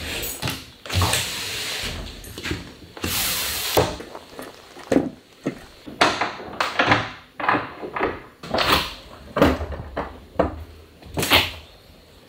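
Doors of a toy-hauler trailer being opened and handled: a run of separate knocks, clacks and rattles through the whole stretch, with a longer rushing swish about three seconds in.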